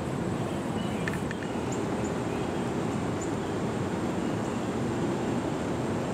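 Steady low outdoor rumble, with a few faint, brief high chirps in the first few seconds.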